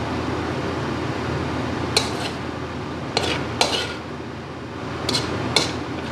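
A spatula scraping and clinking against a metal wok as rice is stir-fried, about five sharp clinks spread through, over a steady hiss.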